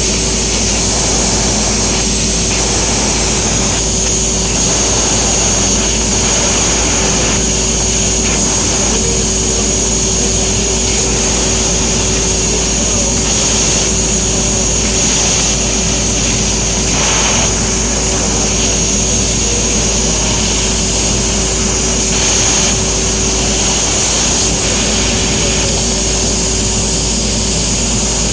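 EKS ESF-3015GT 1 kW CNC fiber laser cutter running while cutting thin stainless steel. A steady loud machine noise carries a constant high whine and a lower steady hum, shifting slightly as the cut goes on.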